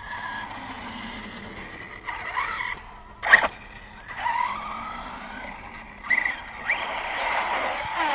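Arrma Outcast 6S RC truck's brushless motor whining up and down in pitch as it is throttled on and off, with tyres scrabbling. A sharp crack about three seconds in is the loudest moment.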